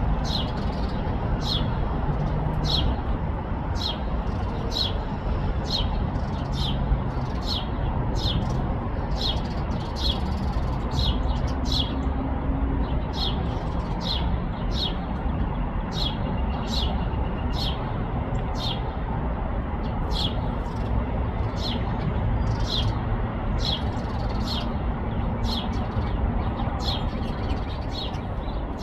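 A bird chirping over and over in a steady rhythm, one short high chirp a little more often than once a second, over a steady low background rumble.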